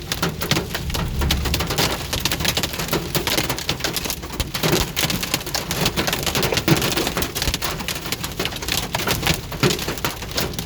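Hail and heavy rain pelting a moving vehicle, heard from inside the cabin: a dense, continuous clatter of hard impacts on the roof and windshield. The speaker puts the hailstones at about quarter size.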